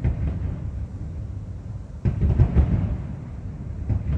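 Fireworks display booming at a distance: a continuous run of overlapping low booms, with a louder cluster of bangs about halfway through.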